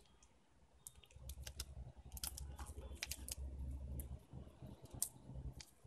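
Clear cellophane wrap being twisted and crinkled by hand around a skewered marshmallow: faint scattered crisp clicks and crackles over a low handling rumble.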